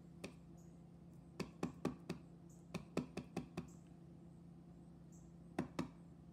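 Clear acrylic stamp block tapping on an ink pad and set down onto cardstock: about a dozen light knocks in quick clusters, the last pair about five and a half seconds in.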